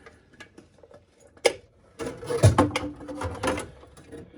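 Steel drain-auger cable being pushed by hand into a clogged drain pipe. It clicks and rattles against the drum and pipe, with one sharp click about a second and a half in and a burst of clattering from about two seconds in, as the slack cable twists into a loop.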